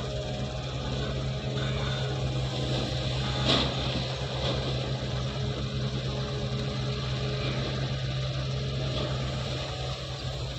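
Wheeled excavator's diesel engine running steadily while it loads soil into a dump truck, with a single sharp clank about three and a half seconds in and a few fainter knocks later.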